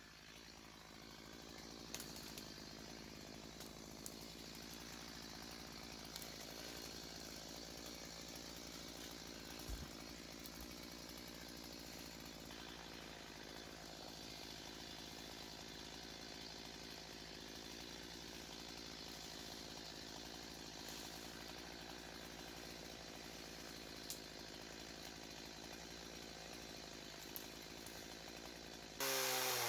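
Chainsaw engine running steadily and fairly quietly, with a few faint clicks.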